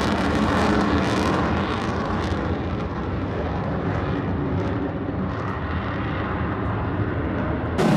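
Fixed-wing aircraft engine at an airshow, a steady rumbling drone that slowly fades as the plane passes. Right at the end a sudden loud blast begins.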